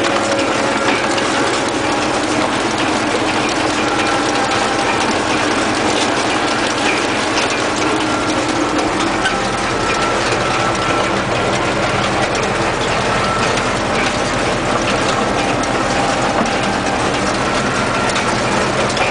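Tractor engine running steadily while its PTO drives a forage wagon picking up cut grass for silage. The pick-up and drive make a continuous mechanical clatter with many small ticks and a faint steady whine.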